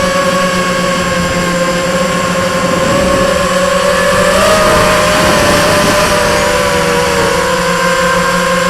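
Multirotor drone's electric motors and propellers whining steadily, the pitch drifting slightly as the throttle changes, with two close pitches heard together for a few seconds in the middle.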